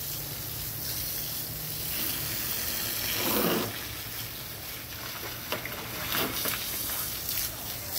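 Garden hose spraying water with a steady hiss, louder for a moment about three seconds in. Near the end, a German shepherd puppy splashing as it steps into a shallow plastic kiddie pool.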